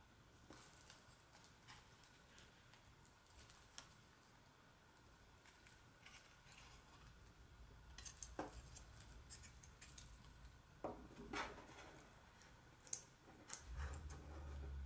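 Faint handling sounds: a small carabiner clip clicking against a metal ring, with light rustling of a fabric and mesh pouch, and a sharper click about 13 seconds in. A low hum comes in near the end.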